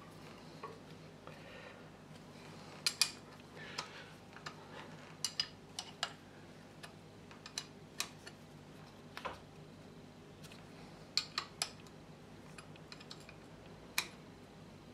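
Metal spanner clinking and clicking against the 14 mm gearbox drain plug as it is worked loose, a scattering of sharp irregular metallic clicks over a faint workshop hum.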